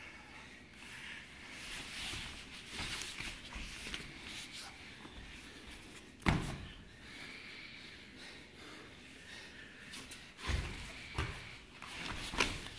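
Two grapplers wrestling on foam puzzle mats: bodies scuffing and shifting on the mat, with one sharp thud about six seconds in and a few more thumps near the end.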